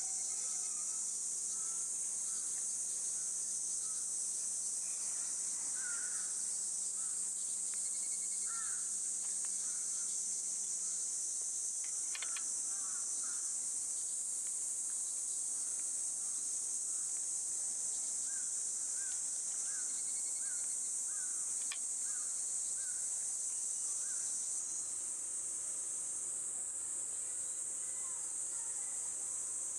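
A steady, high-pitched insect chorus throughout, with birds chirping now and then, including a run of short, evenly spaced chirps about eighteen seconds in. A couple of faint clicks stand out.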